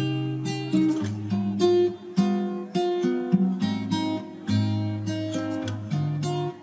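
Background music: acoustic guitar plucking and strumming a run of chords, a new chord every half second to a second.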